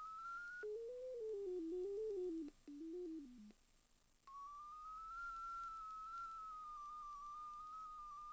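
Ridgid NaviTrack pipe locator's audio signal tone: a single pure tone that wavers in pitch. Just under a second in it drops to a much lower pitch and slides lower still, then cuts out for about a second while the signal reading falls to zero. It then comes back at the higher pitch, its pitch following the strength of the received signal.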